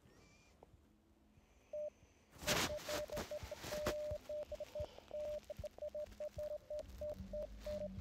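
A Morse practice app's 600 Hz sidetone keyed by hand on a phone's on-screen straight key, a single pitch beeping in an uneven run of short dots and longer dashes. The beeping starts with one beep and then runs steadily from a few seconds in. There is a brief soft rustle of noise just before the run.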